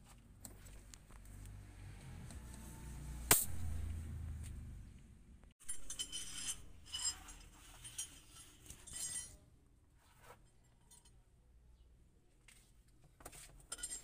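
A low rumble with one sharp knock about three seconds in. Then, after an abrupt cut, a run of light metal clinks and taps, as of small metal parts or tools being handled, thinning out near the end.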